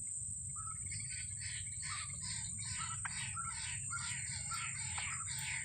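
White-breasted waterhen calling: a fast run of harsh, repeated notes, about three a second, over a steady high-pitched whine.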